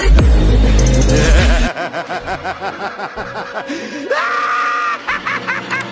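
Electronic dance music with heavy bass cuts off a little under two seconds in. A high-pitched laughing voice follows, with quick repeated laughs and a rising squeal about four seconds in.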